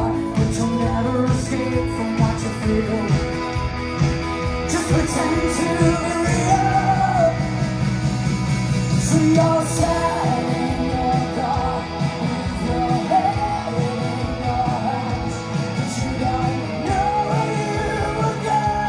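Rock band playing live: a singer's voice over electric guitar and a steady beat.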